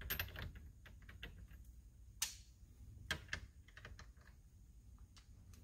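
Faint, irregular light clicks and metallic taps of sockets and tools being handled and fitted at the steering wheel's centre nut, one sharper tap about two seconds in.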